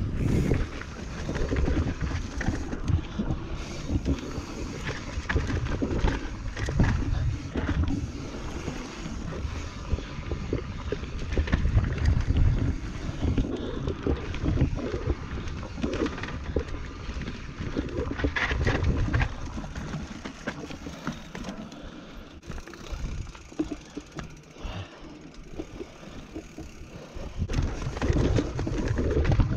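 Transition Patrol carbon mountain bike descending a rough trail: tyres rumbling over dirt and rock while the bike clatters and knocks, with wind noise on the chest-mounted camera. The rumble eases for several seconds in the last third, then picks up again.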